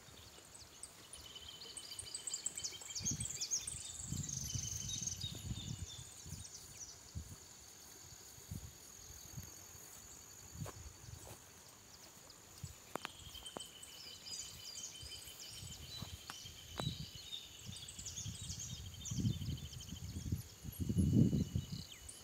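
Wild birds singing in trilled, chattering phrases over a steady high insect whine. There are a few faint ticks, and low rumbling thumps build near the end.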